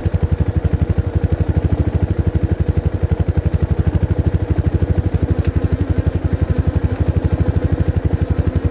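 Motorcycle running with a steady, even beat of about ten pulses a second while the rear brake is pressed, drawing the noise from the brake pads; the rider puts the noise down to pads soaked by rain that have not bedded in.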